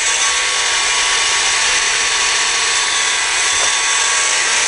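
Milwaukee heat gun running steadily, its fan blowing a constant hiss of hot air with a faint motor whine, warming nylon fuel hose so it will take a barbed fitting.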